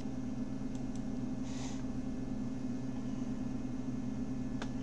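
Steady low electrical background hum, with a faint click about a second in and another near the end.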